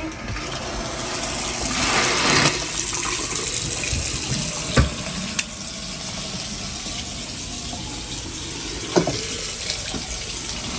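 Water running from a newly installed bathroom sink faucet into the basin, turned on to check the new fitting for leaks. The flow builds over the first couple of seconds, with a couple of light knocks partway through.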